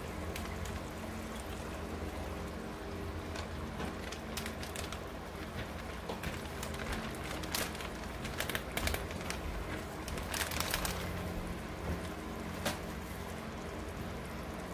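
Chicken pieces sizzling in a frying pan with irregular crackles as the marinade is poured in from a plastic zip-lock bag, with a few louder rustles of the bag about halfway through. A steady low hum runs underneath.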